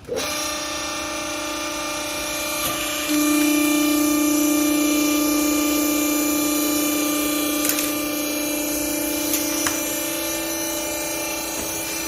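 Hydraulic baler's electric motor and pump starting up and running with a steady hum and whine. It gets louder about three seconds in, as the pump takes on load.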